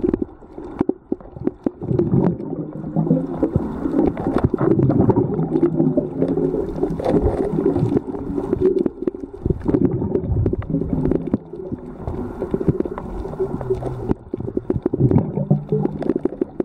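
Underwater sound picked up by a camera held below the surface: a muffled low rumble and hum of the water with frequent sharp clicks and crackles throughout.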